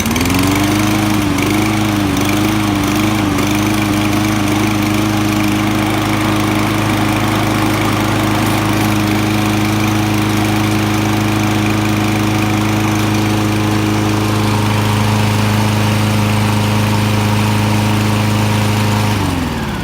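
Toro Recycler lawn mower's 149cc Kohler engine starting and running. Its speed surges up and down several times in the first few seconds, then settles to a steady run, and it winds down with falling pitch near the end as it is shut off. The owner calls the engine bad: it knocks and surges.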